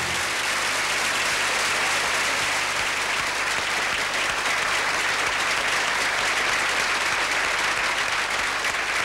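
Studio audience applauding steadily, a dense continuous clapping.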